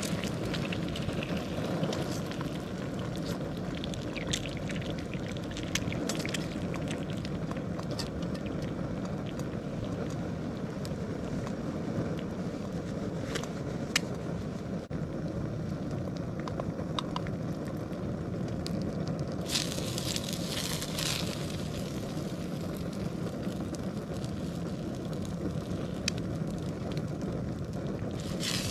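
Primus OmniFuel stove burner running steadily under a frying pan, with eggs sizzling and now and then a click or scrape of the spatula against the pan.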